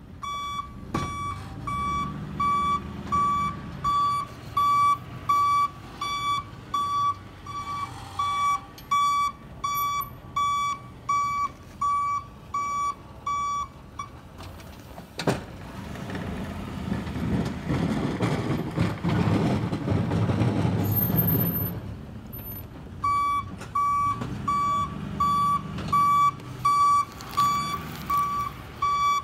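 Snow-plow pickup truck's backup alarm beeping steadily, about three beeps every two seconds, while the truck reverses. Around the middle the beeping stops and the truck's engine and plow rumble louder for several seconds, then the beeping starts again.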